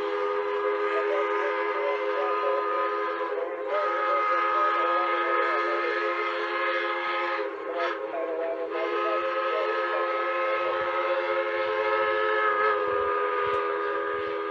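Whistle of D&SNG No. 476, a K-28 narrow gauge steam locomotive, blowing long blasts. It sounds a chord of several steady notes at once, with short breaks about four and eight seconds in.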